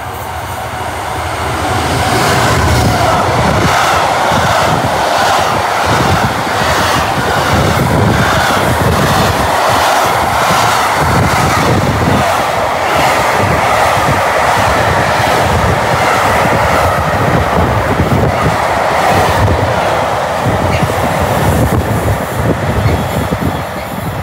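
A Freightliner container train passes close at speed. The diesel locomotive goes by in the first seconds, then a long rake of container wagons rumbles past with an even, rhythmic clatter of wheels on the rails, easing a little near the end.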